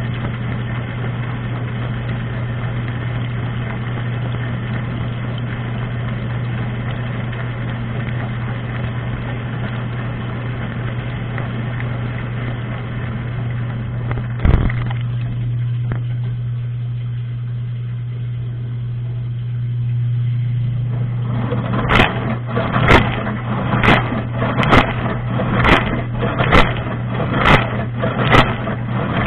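Dishwasher wash cycle heard from inside the tub: the circulation pump motor hums steadily under the hiss of spraying water. About halfway through there is a knock, and the spray dies down for several seconds while the hum goes on. The spray then returns as rhythmic splashes about once a second.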